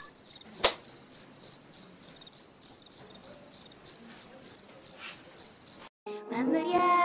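Crickets chirping, the stock sound effect for an awkward silence after a joke falls flat: an even high chirp about four times a second, with one sharp click about half a second in. The chirping cuts off suddenly near the end and music begins.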